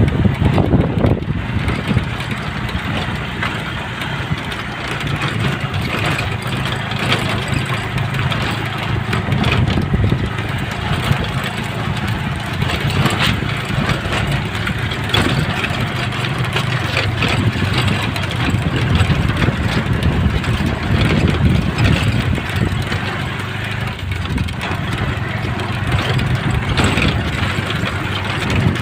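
A vehicle engine running steadily under load on an off-road track, with frequent knocks and rattles from the jolting ride.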